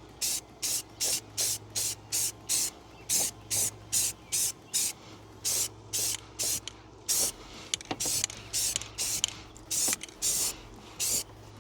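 Aerosol spray paint can spraying in quick short hisses, about two or three a second, with brief pauses near the middle, laying on light coats of paint.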